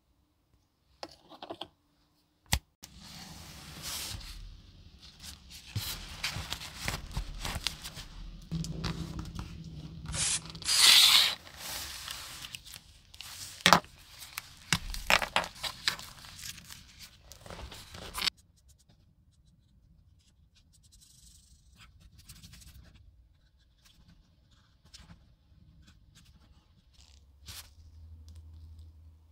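Irregular scraping and tearing noises with sharp clicks, busiest through the first two-thirds with one loud hissing burst partway through, then dropping to faint rustling.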